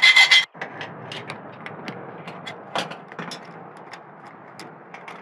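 Scattered small clicks and ticks of hand tools and metal parts being worked while an ignition part is fitted to a Lifan 125cc motorcycle engine, over a low noisy background.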